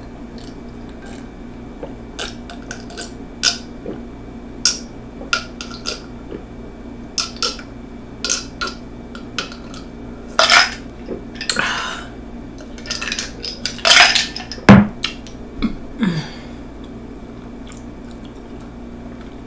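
Drinking milk from a glass in gulps: a string of small swallowing and glass-on-lip clicks, with a few louder breathy sounds partway through. About fifteen seconds in there is a single knock as the glass is set down on the table.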